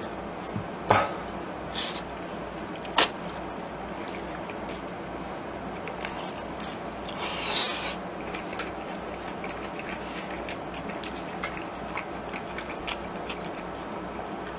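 A person eating jjajangmyeon noodles close to the microphone: quiet chewing and mouth sounds, with a few sharp clicks about one and three seconds in and a short noisy burst about seven seconds in.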